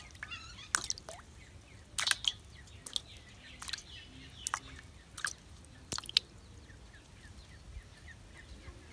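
Pieces of cut fish dropped one at a time into a steel bowl of water, each a small sharp plop or tap, scattered through the first six seconds. Faint bird chirps are heard behind them.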